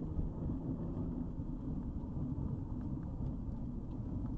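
Steady low rumble of wind on the microphone, with a faint low hum through the first half.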